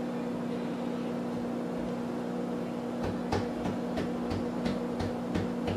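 Microwave oven running with a steady hum while it melts butter. About halfway through, a light tapping starts, about three taps a second.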